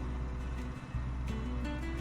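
Background music with guitar and a steady bass line.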